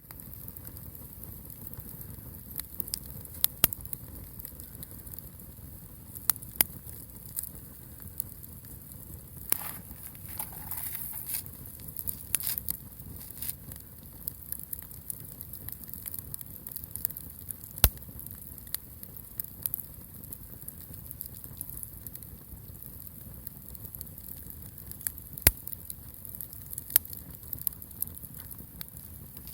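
Wood bonfire burning, crackling steadily with sharp pops at irregular intervals and a brief hiss about ten seconds in.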